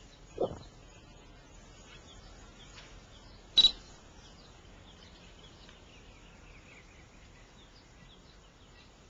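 Quiet open-air ambience with faint high bird chirps falling in pitch, broken by a short low thud about half a second in and a single sharp click about three and a half seconds in.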